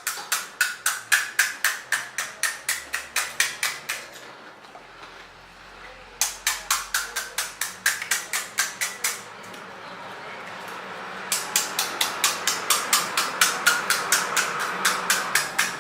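Close-up chewing of crisp pani puri: runs of fast, even crunches, about three a second, stopping twice for a second or two between runs.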